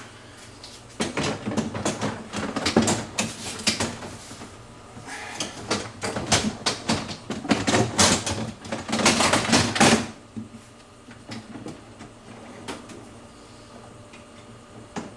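Irregular clattering, knocking and rattling of hard freezer drawer parts being handled. It starts about a second in and stops about ten seconds in, getting busiest just before it stops.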